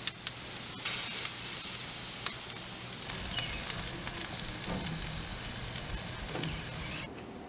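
Beef burger patties sizzling on a gas grill, a dense crackling hiss with scattered pops. It starts abruptly about a second in and cuts off suddenly shortly before the end.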